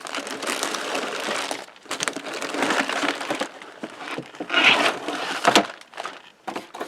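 Plastic model-kit packaging rustling and crinkling in several stretches as the parts are handled, with a couple of sharp clicks a little before the end.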